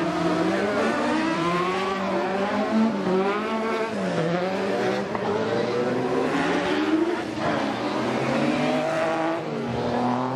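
Several autocross buggies' engines revving hard as the cars run through a dirt corner one after another. Their pitches overlap and keep rising and falling as the drivers accelerate and lift.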